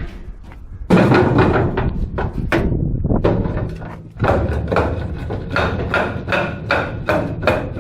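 A rapid series of wooden knocks and thuds, several a second: a stuck wheel chock being banged loose with a length of timber.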